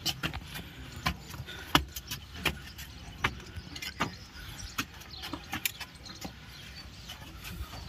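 Footsteps of a man in sandals on a stone rooftop: irregular sharp taps, about one every half second to second, over a low steady rumble.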